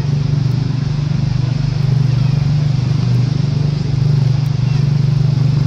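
A motor running steadily at constant speed, giving a loud, even, low hum with a fine rapid flutter.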